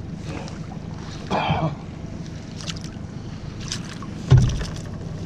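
Small fishing boat sitting on the water, with a steady low rumble of water and wind. There is a brief noisy burst about a second and a half in, and one louder sharp thump about four seconds in.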